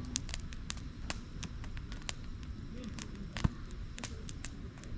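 Burning firewood crackling, with irregular sharp pops and one louder snap about three and a half seconds in.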